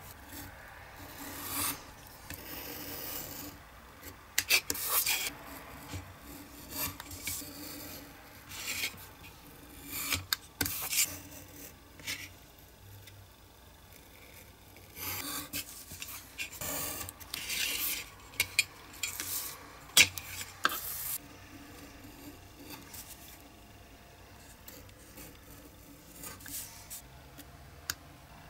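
Craft knife blade scoring through thin printed card along a metal ruler on a cutting mat: irregular short scraping strokes with sharp clicks and taps in between, quieter in the last several seconds.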